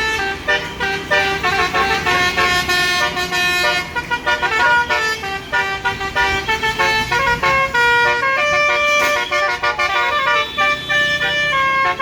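Indonesian bus 'basuri' telolet horn playing a melody, several tones at once. The notes are short and quick at first, then longer and held from about two-thirds of the way in.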